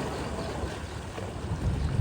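Wind buffeting the microphone, a low rumble with a stronger gust near the end.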